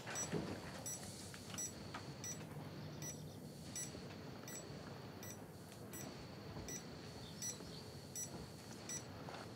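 Faint electronic beeping, short regular beeps about two or three a second over a steady high whine: an electronic blood pressure monitor taking a reading.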